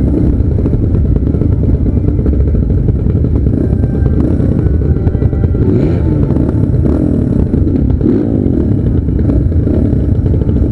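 Several motocross motorcycles running at once, their engines revving up and down, several pitches gliding over each other.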